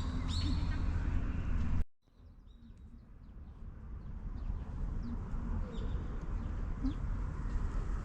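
Short, high chirping calls over a steady low rumble. The sound cuts out abruptly about two seconds in, then comes back quieter with a few faint scattered chirps.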